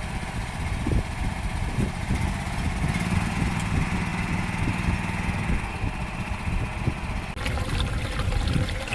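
Engine of an ISEKI PQZ43 riding rice transplanter running steadily, with an abrupt change in the higher part of the sound about seven seconds in.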